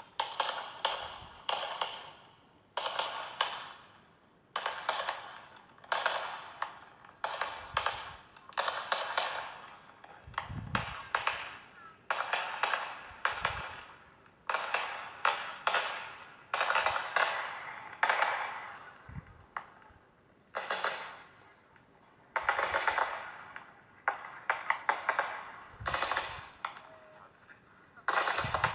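New Year's Eve fireworks played back from a video through a speaker: repeated volleys of rapid crackling bangs, a fresh burst every second or two, with a few deeper thuds among them.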